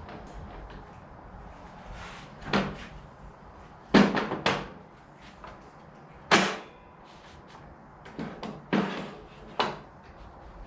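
A series of hard knocks and clunks, about seven spaced irregularly, loudest near the middle: workpieces and tools being handled and set down in a workshop.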